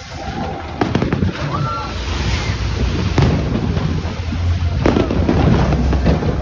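Fireworks bursting overhead: a few sharp bangs with crackle, the loudest about three seconds in, over a steady low rumble.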